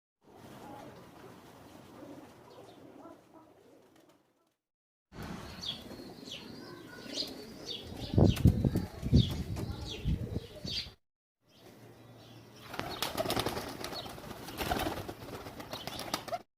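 Pigeons flapping their wings, with fluttering and wing-claps in bursts, and short high chirps from birds in the middle part. The sound breaks off to silence briefly twice.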